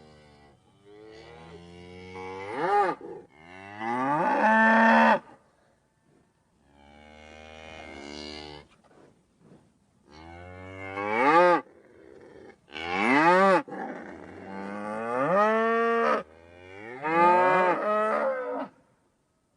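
Cattle mooing: a string of about eight drawn-out calls with short pauses between, many of them rising in pitch to a loud peak.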